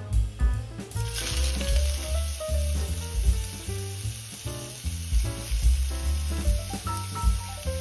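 Sliced pork hitting hot oil in a frying pan and sizzling. The hiss starts about a second in and keeps going as the meat fries, with background music underneath.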